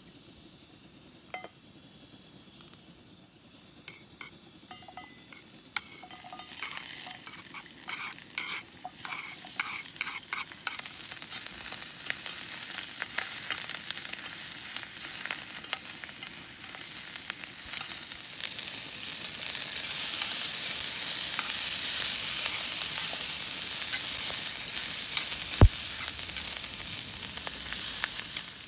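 Sizzling, crackling hiss of food frying in a hot pan. It sets in about six seconds in after a few light clicks and grows louder, with one sharp click near the end.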